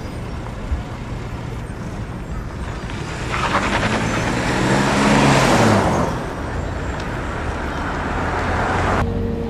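Car engine and road noise in traffic. About three seconds in, a vehicle passes close by: its sound swells and its engine note drops in pitch as it goes. A steady tone starts near the end.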